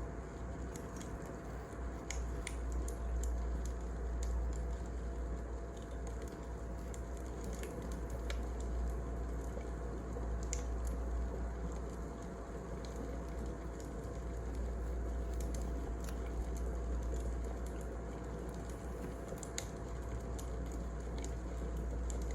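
Wood fire crackling, with scattered sharp pops over a steady low rumble and a faint steady hum.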